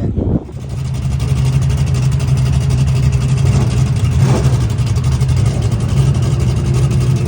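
Loud drag car engine running at steady held revs, with a rough, rapidly pulsing exhaust note.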